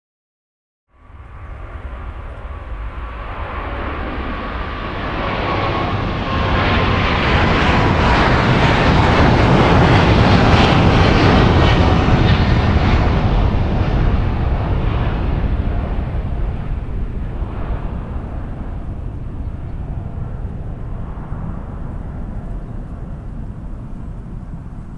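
Jet airliner's turbofan engines at takeoff power as it passes on the takeoff run. The sound cuts in about a second in, swells to its loudest about halfway, then slowly fades, with a whining tone that falls gently in pitch.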